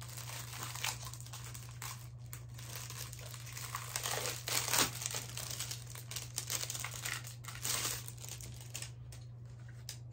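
Packaging crinkling and rustling as a notebook is unwrapped by hand, with louder crackles about five and eight seconds in.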